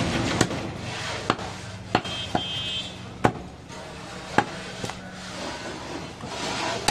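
A butcher's knife chopping goat meat on a wooden log chopping block: about seven sharp strikes at irregular intervals.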